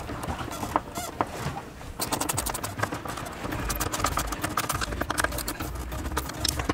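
Hand tool working the fittings of a dinghy's steering housing: a few separate metal clicks, then from about two seconds in a rapid run of clicking and scraping, with a low rumble in the middle.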